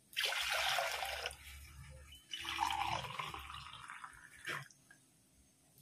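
Milk being poured from a stainless-steel tumbler into a steel pot, in two pours: one at the start and a second about two seconds in. A single light knock of the tumbler follows.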